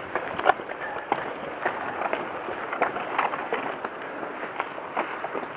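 Mountain bike rolling over a stony gravel trail: steady tyre noise with the bike rattling and knocking irregularly over the rocks.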